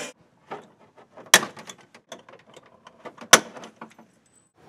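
Hand pop-rivet tool working rivets into a plastic wheel well liner patch: small clicks and knocks of the tool's handles, with two sharp snaps about two seconds apart as rivet mandrels break off.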